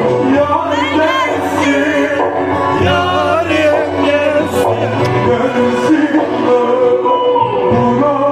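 A man singing a song with ornamented, wavering runs that bend up and down over held instrumental notes.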